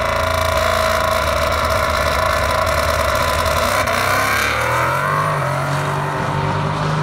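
Twin-turbo Ford Mustang S550 engine, exhausting through Magnaflow mufflers, held at high revs during a burnout. About four and a half seconds in the revs drop and it settles to a lower, steady note.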